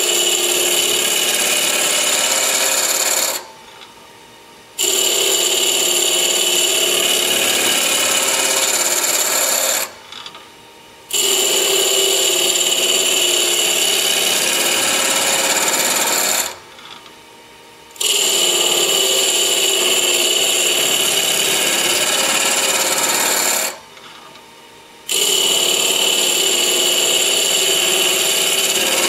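A 3/4-inch spindle gouge held flat against a wood blank spinning on a Grizzly variable-speed mini-lathe, scraping off chips in a loud, rough rasp as the blank is roughed down to a cylinder. The cut goes in passes of about six seconds and stops briefly four times as the tool is lifted off.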